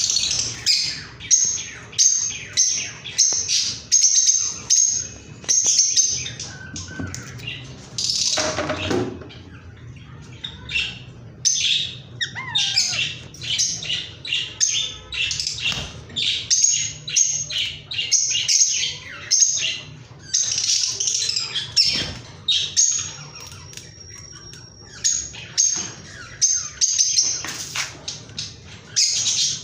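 Indian ringneck parrot calling in runs of short, high chirps, a few a second, with one longer, harsher call about eight seconds in.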